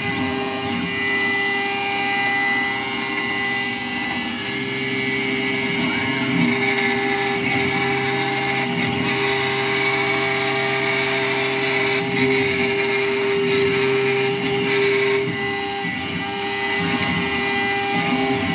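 Langmuir Systems MR-1 gantry CNC mill's spindle at 8,000 RPM driving an end mill through a full-width slot in aluminum: a steady pitched machining tone over the cutting noise, with a lower hum that joins about four seconds in and drops out near fifteen seconds. The owner takes the spindle's noise for failing spindle bearings.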